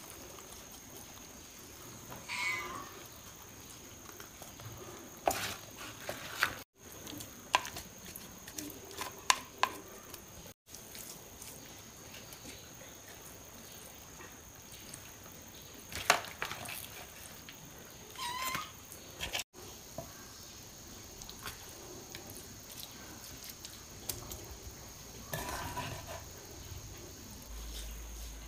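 An animal calling three times, each a short falling cry, between sharp clicks and knocks of kitchen utensils as masala is worked onto a fish on a banana leaf.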